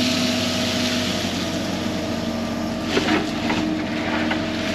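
Excavator's diesel engine running steadily, with a short clatter of knocks about three seconds in.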